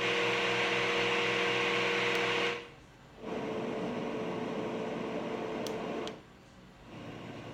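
LectroFan Micro sound machine playing its fan sounds: steady fan noise with a faint tone running through it. It switches to a different fan sound about two and a half seconds in, and again near the end, with a brief drop in sound at each change. A couple of light clicks come just before the second change.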